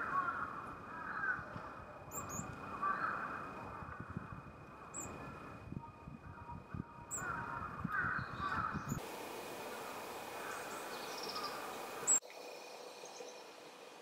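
A crow cawing several times, with brief high chirps of small birds in between. The sound changes abruptly at about nine seconds, and again at about twelve seconds with a click, after which it is quieter.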